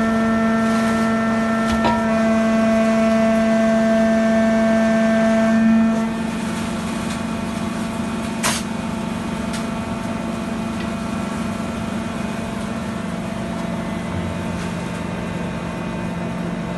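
Packing press for sawdust and wood chips running with a steady machine hum. About six seconds in the hum drops in pitch and level, and a sharp click follows a couple of seconds later.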